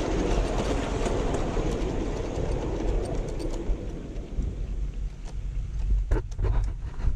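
Miniature steam train running on its track, a steady rushing noise over a low rumble, which dies away about halfway through, leaving the low rumble and a few sharp knocks near the end.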